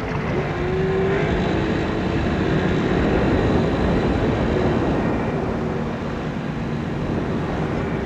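Outboard motor of an inflatable boat running steadily under an even wash of wind and water noise.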